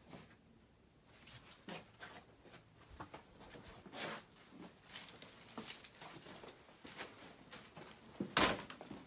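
Irregular footsteps and scuffs on a debris-strewn floor, with small clicks and scrapes and one louder knock near the end.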